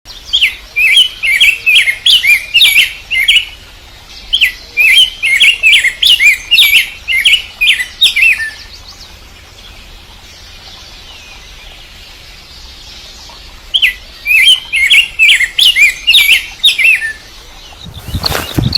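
A male bird singing a fast run of quick, rising chirps, calling for a mate. It sings in two bursts, the first about eight seconds long and the second about three, with a pause of some five seconds between. Near the end a loud, brief rustling thump.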